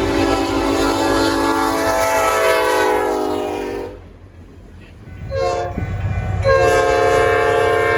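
Diesel freight locomotive's multi-chime air horn sounding a long blast, then a short one, then another long one, over the rumble of the passing train. This is the pattern of a crossing signal.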